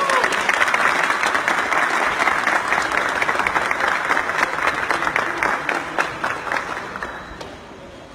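Crowd applauding, dense clapping with a shout at the start, dying down about seven seconds in.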